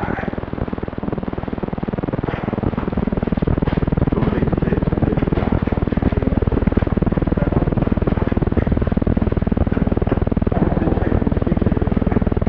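A steady low mechanical drone with a fast pulse, getting louder about two seconds in, with faint scattered clicks over it.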